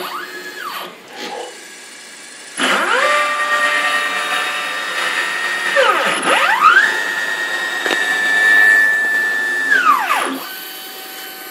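Stepper motors and ballscrew drives of a CNC router (Keling 425 oz-in steppers) whining through a rapid move at 110 inches per minute. The pitch climbs as the axes speed up and holds steady through a long straight run, with a quick dip and rise near the middle. It then glides down as the axes slow, leaving a quieter hum near the end.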